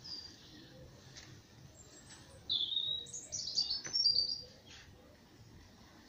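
A songbird singing one phrase about two and a half seconds in, lasting about two seconds: a held whistled note followed by a quick run of higher notes, with a single short high note at the very start.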